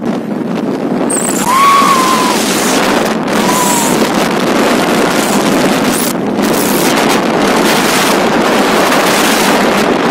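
Wind rushing over the microphone of a phone held out of a moving car, with the hiss of road traffic. Two short high-pitched tones that rise and fall, one about a second and a half in and one at about three and a half seconds.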